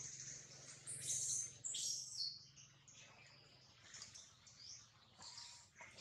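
High-pitched, bird-like chirping calls of a newborn macaque crying for its mother: a string of short squeaks and falling chirps, loudest about a second in.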